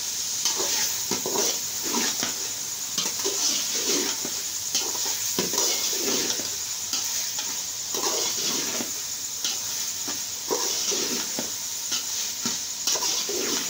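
A slotted metal spoon scraping and stirring chicken around a metal pot in repeated strokes, over a steady sizzle of hot oil and masala. This is the bhuna stage: the chicken is being fried down in its spices after it has released its water.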